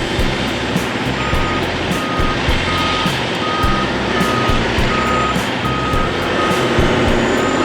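Heavy machine's reversing alarm beeping evenly, about one and a half beeps a second, starting about a second in, over the steady running of a diesel engine.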